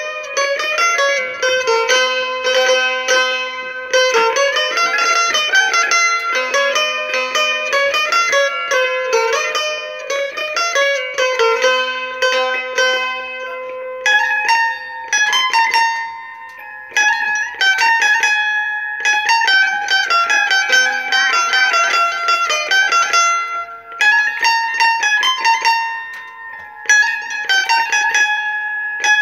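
Çifteli, the two-stringed Albanian long-necked lute, played solo: a fast picked folk melody. The tune moves up to a higher register about halfway through.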